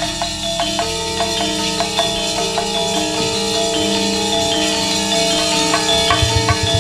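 Gamelan playing: bronze metallophones struck in a quick, even run of ringing notes, with drum strokes joining in near the end.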